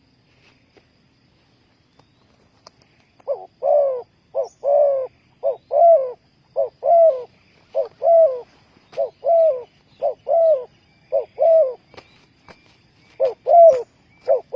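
Spotted dove cooing. After about three seconds of quiet, it calls a steady run of coos: a short note followed by a longer, falling one, the pair repeating about once a second.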